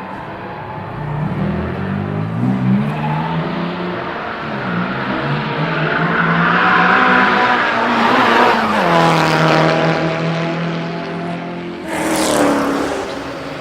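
Turbocharged four-cylinder engine of a Nissan Silvia S15 with an HKS GT-III turbo kit, revving up and down as the car is driven hard. The pitch climbs and drops several times. Near the end there is a short burst of hiss.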